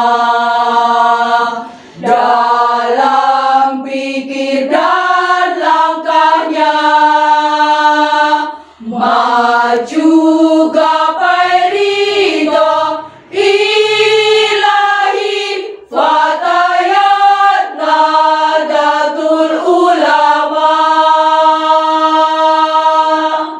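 Women's choir singing a devotional anthem in phrases with brief breaths between them, closing on a long held chord that stops near the end.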